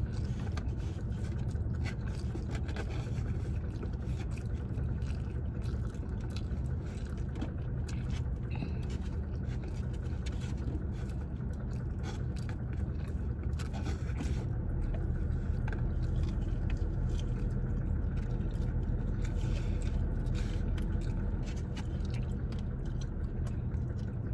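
A person chewing and eating, with small clicks and scrapes, over a steady low rumble.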